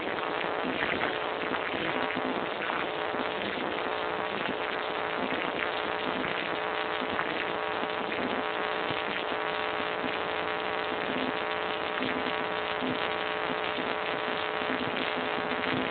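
Road-paving machinery running at close range: a steady buzzing engine drone with a constant hum and a dense rough noise over it.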